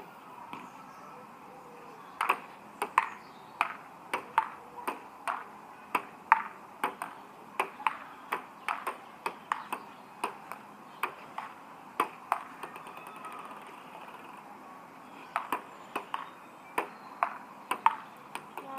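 Table tennis ball clicking back and forth off the bats and table in a rally, two or three sharp clicks a second. The clicks stop for a couple of seconds after about thirteen seconds, then a second rally starts.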